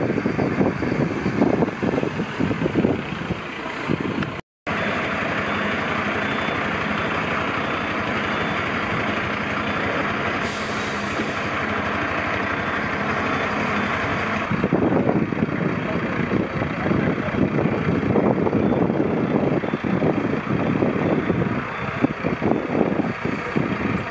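Fire trucks' diesel engines running, a steady dense rumble. Through the middle stretch a faint high beep repeats. The sound drops out for a moment about four and a half seconds in.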